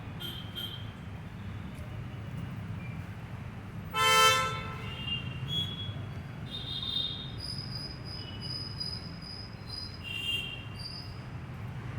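Outdoor ambience: a steady low rumble with scattered short high-pitched chirps, and one loud horn-like toot lasting about half a second, about four seconds in.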